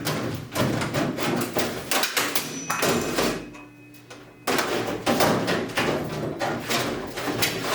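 Sheet-metal outer cover of a microwave being worked loose and pulled off its chassis: a run of clanks, knocks and scrapes, with a short lull a little past the middle.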